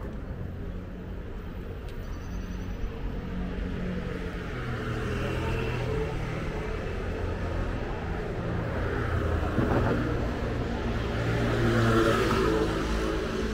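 Street traffic: a motor vehicle's engine rumbling as it passes, growing louder to a peak near the end.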